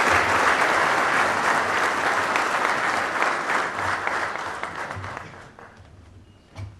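Audience applauding, the clapping thinning out and dying away about five to six seconds in, followed by a single knock near the end.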